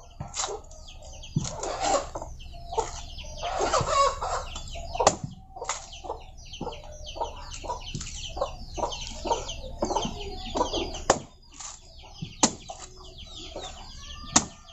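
A blunt knife chopping into the husk of a young coconut: about half a dozen sharp, spaced-out strikes. Chickens cluck throughout.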